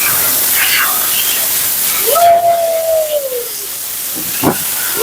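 Steady hiss of a pet-grooming blow dryer, with a Siberian husky giving one long howl that falls in pitch about two seconds in, then a short sharp yip near the end.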